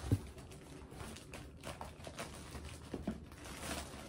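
Packaging being handled and unpacked, rustling and crinkling in irregular bursts, with a soft thump on the table near the start.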